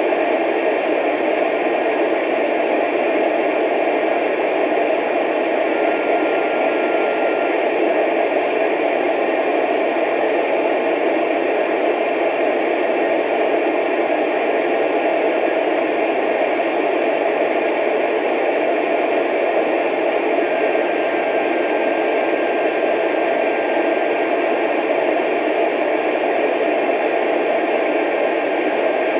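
Steady radio static hissing through a receiver's speaker on an open channel, with a faint whistle tone heard briefly about six seconds in and again for the last third.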